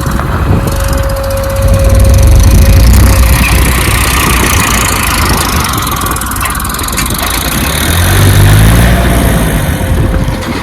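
A heavy diesel engine from a backhoe loader or tractor runs loud and steady, then revs up briefly about eight seconds in.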